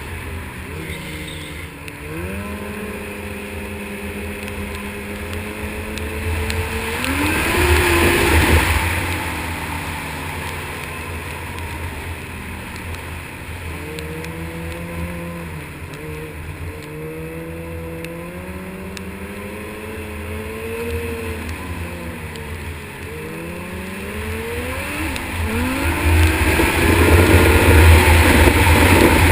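Snowmobile engine running under way, its pitch rising and falling again and again as the throttle opens and eases. It gets louder in a surge about eight seconds in and again near the end.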